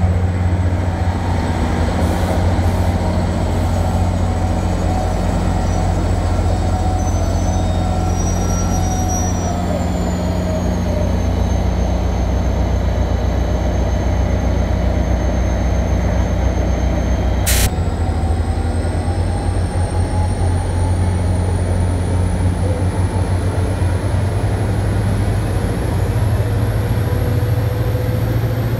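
Caltrain EMD F40PH diesel-electric locomotive running past, a loud steady low engine drone with faint wheel-squeal tones that slide down in pitch as the train slows. After a sudden cut about 18 s in, a train pulls out, its whine rising steadily in pitch as it speeds up.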